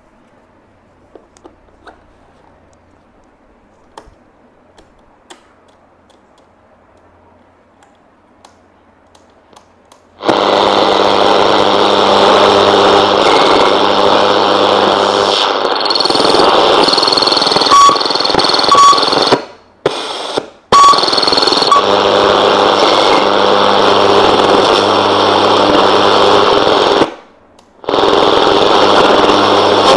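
Faint clicks from the Sony CF-1450 radio cassette recorder being handled and plugged in, then about ten seconds in its speaker comes on loudly with radio static over a low hum as it is tuned, cutting out briefly three times as the controls are worked.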